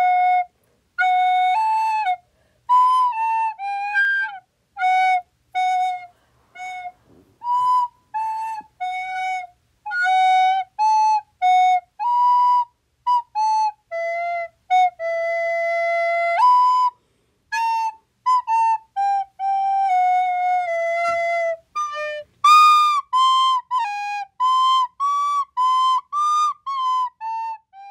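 A solo flute-like melody played one note at a time, mostly short, separate notes with brief gaps, and a longer held note about halfway through.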